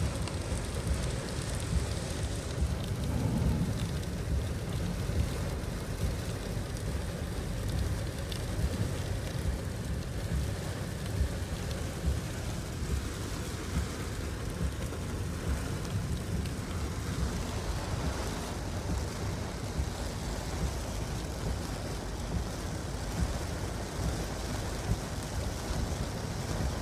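Steady rain, with a continuous low rumble underneath that flickers in level, like wind buffeting the microphone.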